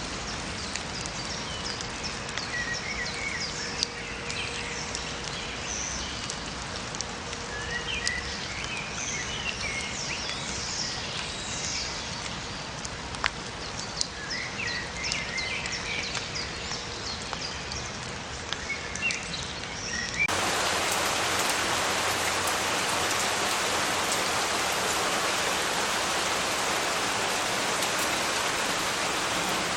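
Small songbirds chirping and twittering over a light patter of rain, with a few sharp drips. About twenty seconds in it cuts abruptly to steady heavy rain, a dense, louder hiss.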